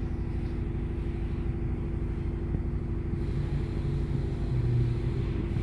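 Steady low mechanical rumble with a constant droning hum; a deeper hum swells briefly near the end.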